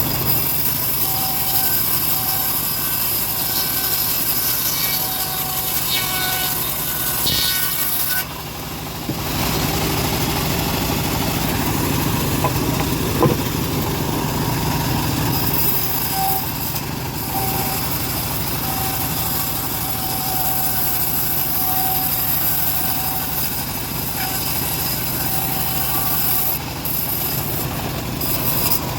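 Band saw running and sawing through wood: a steady motor-and-blade noise, with a short dip in level about eight seconds in.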